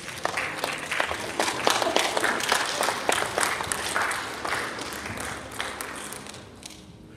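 Congregation applauding: dense clapping that builds over the first couple of seconds and dies away near the end.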